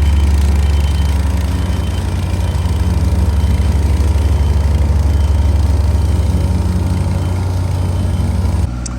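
Engine of heavy paving equipment running steadily, deep and even. It drops away abruptly near the end.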